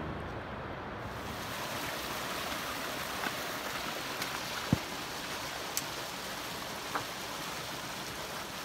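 Steady rush of a small creek flowing over rock, with a few light clicks between about three and seven seconds in.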